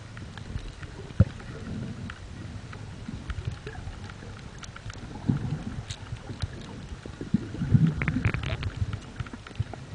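Water noise heard by a camera held underwater: a muffled low rumble of moving water with scattered sharp clicks and crackles, swelling louder about five seconds in and again near eight seconds.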